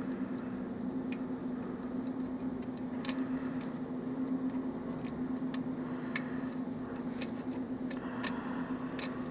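Faint, irregular metallic ticks of a lock pick working the pin stacks of a Russwin lock cylinder during single-pin picking, over a steady low hum.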